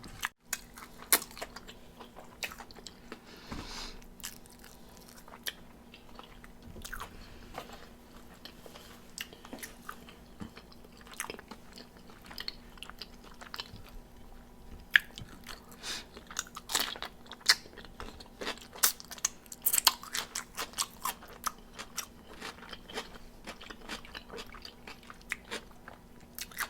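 Close-miked chewing and biting of crispy fried chicken wings: many irregular sharp crunches, more frequent in the second half.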